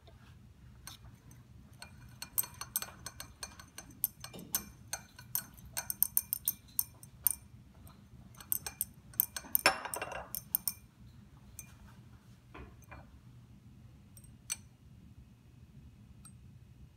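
Glass stirring rod clinking against the inside of a 100 mL Pyrex glass beaker while a solution is stirred: a quick run of light, ringing clinks with one louder scrape about ten seconds in. A few single clicks follow.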